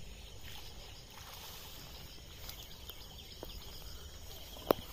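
Steady outdoor background noise, with rustling and handling sounds as the camera is carried through tall grass toward the end, and one sharp click shortly before the end.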